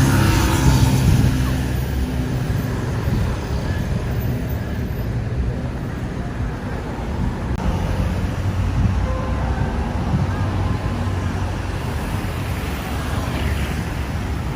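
Steady road traffic on a busy city roundabout: cars and buses running past with a constant low engine rumble, a little louder in the first second or so as a vehicle passes close.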